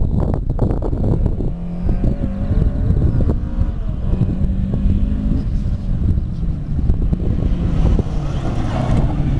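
Rally car engine pulling through a tight chicane, its note stepping up partway through and getting louder as the car passes close near the end, with strong wind buffeting on the microphone.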